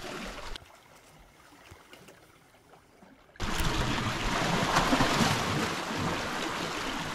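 Faint for the first few seconds, then, starting suddenly about halfway through, a steady wash of small sea waves lapping and splashing over the rocks at the water's edge.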